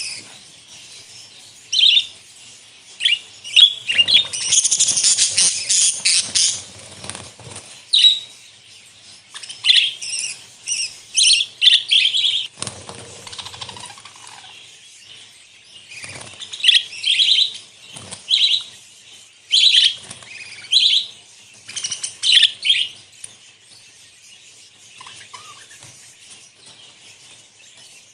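A flock of budgerigars chirping and chattering, many short calls overlapping, busiest through most of the stretch and thinning out near the end.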